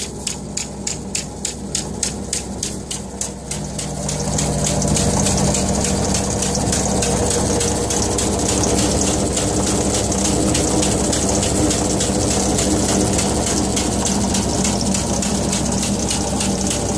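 Machinery of a truck-mounted Bergkamp unit running, with a rhythmic clatter of about four beats a second. About four seconds in, a louder steady rushing sound with a low hum comes in and holds.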